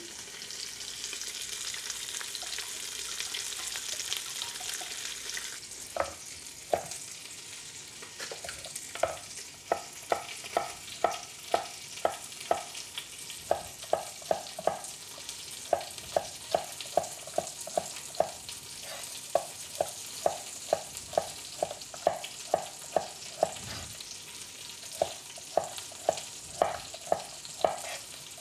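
Wine poured into a hot pan of browning short ribs sizzles with a loud hiss that settles after about six seconds. Then a utensil knocks against the pan about twice a second as the food is stirred over a continuing sizzle.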